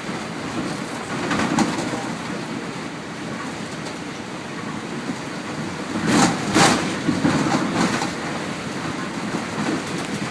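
Inside a MAN 18.310 bus on the move: a steady engine and road drone, with body rattles and a cluster of loud knocks about six to seven seconds in, as the bus goes over bumps.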